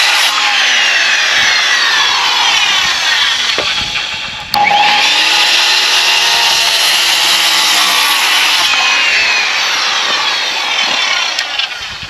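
Skilsaw circular saw cutting through a rafter board, making the two cuts of a bird's mouth notch. It runs loud and continuous, with a short break about four and a half seconds in, then winds down near the end.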